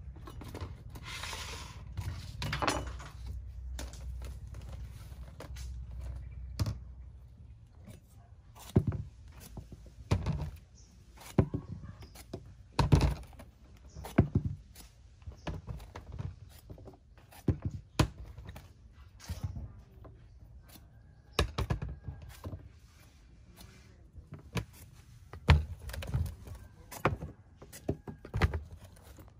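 Light knocks and taps at irregular intervals as eggplants are peeled with a knife and set into a plastic bowl. In the first few seconds, a low rumble and a short rustle as plastic baskets are handled.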